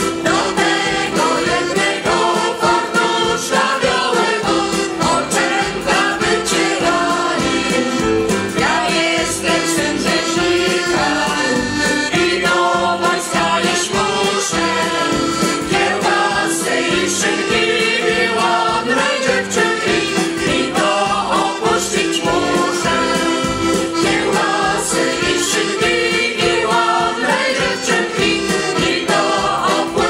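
Polish folk ensemble of men and women singing together in chorus to accordion accompaniment, amplified through a stage sound system.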